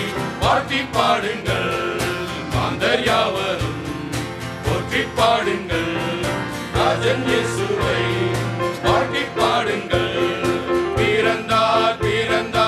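Live band music with singing: an accordion and an electronic keyboard playing under a singing voice, over a steady beat.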